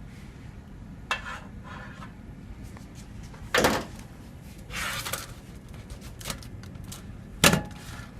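Parts of a disassembled car air-conditioning compressor being handled: a few scattered clunks, the loudest about three and a half and seven and a half seconds in, with a short scraping rustle around five seconds.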